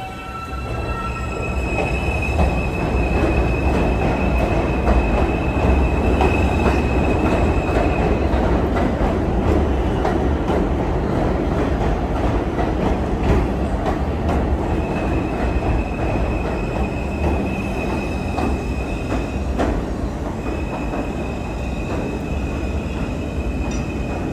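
New York City subway M train running along the platform: a loud steady rumble of wheels on rail. Right at the start the motor whine rises in short steps as the train pulls away, then a high steady wheel squeal comes in three long stretches, near the start, in the middle and again near the end.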